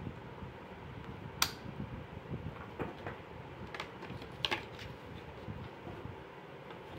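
Hard plastic tricycle parts being handled and fitted by hand, giving scattered light clicks and knocks. There is a sharp click about one and a half seconds in and two clicks close together about four and a half seconds in.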